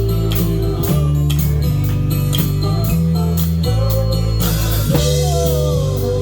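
Live band playing an instrumental stretch of a song: drum kit keeping a steady beat under bass and guitar, with a few sliding notes about five seconds in.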